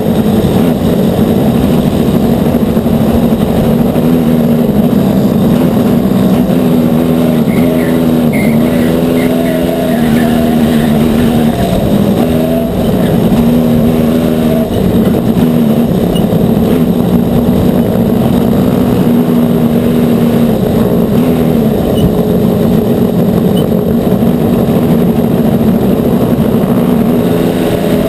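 Aixro XR50 single-rotor Wankel kart engine running hard at close range, its pitch dropping and climbing again several times as the revs fall and rise through the corners, with a fresh climb near the end as the kart accelerates onto the straight.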